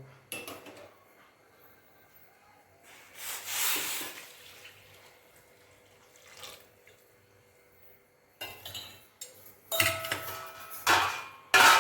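Hot water poured into a metal cooking pot of spiced mutton, a brief rush about three seconds in, then metal utensils clanking against the pot with a few sharp ringing strikes near the end.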